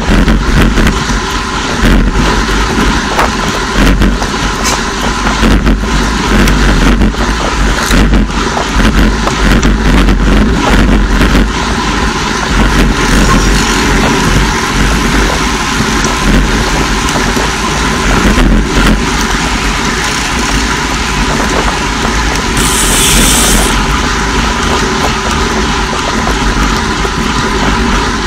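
Wind rushing and buffeting over a bike-mounted camera's microphone, with road-bike tyre noise, as a road bike rides at about 40 km/h. A brief high hiss comes about three-quarters of the way through.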